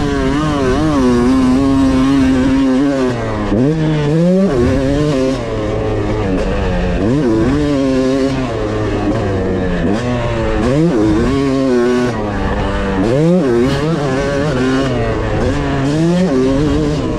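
Yamaha YZ250 single-cylinder two-stroke dirt bike engine under hard riding, its pitch climbing as the throttle is opened and dropping sharply when it is chopped, several times over, heard from the rider's chest with wind hiss.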